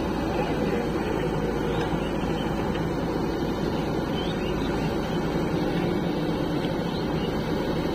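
Steady drone of a JCB 3DX backhoe loader's diesel engine working under load as it swings its bucket to load mud.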